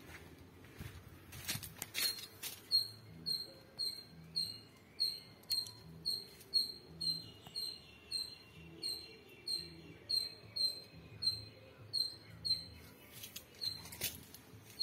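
An animal's high, sharp chirp repeated steadily, about twice a second, with a few brief knocks near the start and near the end.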